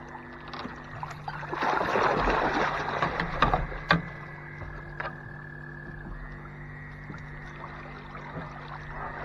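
Rustling and scraping of fishing gear being handled in a small john boat for about two seconds, then a couple of sharp knocks. A steady low hum and a steady high drone run underneath.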